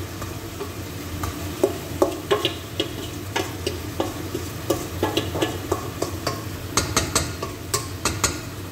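Wooden spoon scraping and knocking against a stainless steel bowl, making irregular sharp clinks, as garlic and soy sauce are scraped out into a pot. Underneath is a steady sizzle of chicken sautéing in oil.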